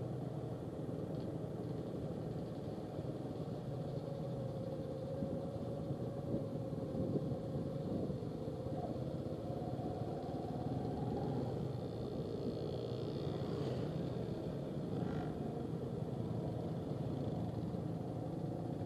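Motorcycle engines running steadily at low speed, the engine note wavering a little, with a few light knocks about six to eight seconds in.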